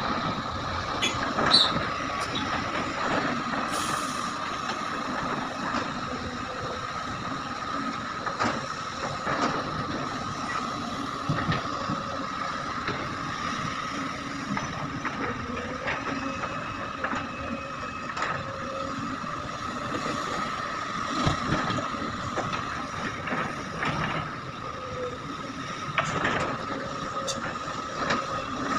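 Heavy machinery at work: an excavator's diesel engine and hydraulics running steadily under a steady whine, with scattered knocks and clanks, as in loading ore into a dump truck.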